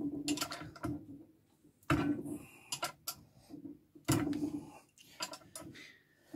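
Rover K-series twin-cam cylinder head with its camshaft turned by hand with a socket bar, the valves opening and shutting: metallic clunks with a short ring, a strong one about every two seconds with lighter clicks between.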